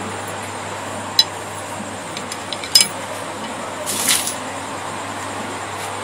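Light clinks of a paintbrush against a water container, a single one about a second in and a quick cluster near the three-second mark, then a short swish about four seconds in, as a flat brush is wetted for a watercolour wash. A steady low hum runs underneath.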